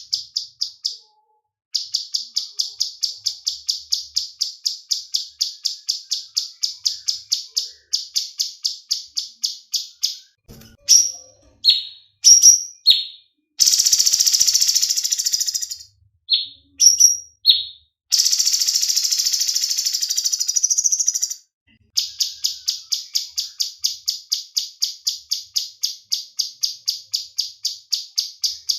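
Cucak cungkok songbird singing: long runs of rapid, evenly repeated high chirps, about four or five a second. Around the middle it breaks into a few short swooping notes and two buzzy rattling trills of two to three seconds each, then goes back to the repeated chirps.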